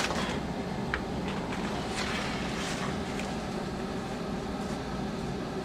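A steady low mechanical hum with a few faint clicks and taps.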